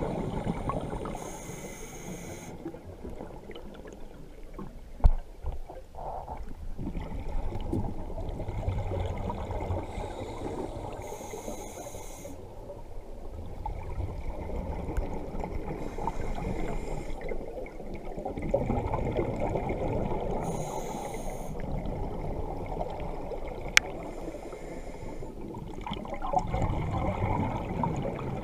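A scuba diver breathing underwater: a short regulator hiss on each inhale every few seconds, and gurgling exhaust bubbles in between. A sharp knock about five seconds in and another later on.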